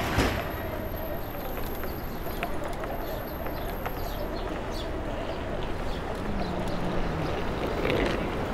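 City street noise: a steady rumble of traffic with a few scattered clicks and knocks.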